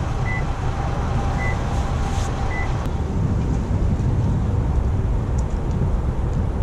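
Wind buffeting the microphone, a steady low rumble, with three short high electronic beeps about a second apart in the first three seconds.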